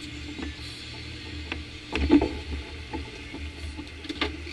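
Boat under way on twin outboard motors, a steady low drone, with scattered knocks and rattles on board, the loudest about two seconds in.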